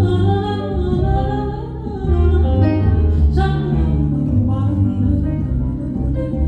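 Live band music from a song performance, with held bass notes under shifting higher instrument parts.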